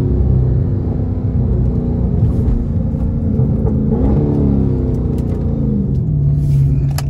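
Dodge Charger 392's 6.4-litre HEMI V8 running as the car slows down, heard from inside the cabin: its pitch falls, rises briefly about four seconds in, then settles low and steady. A sharp click near the end.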